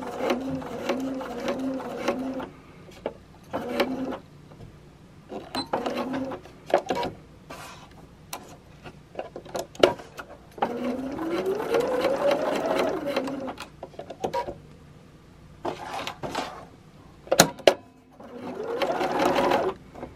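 Electric sewing machine stitching through nylon poly strapping in several short runs with pauses between. In the longest run, about eleven seconds in, the motor speeds up with a rising whine and then holds steady. Sharp clicks and knocks fall between the runs.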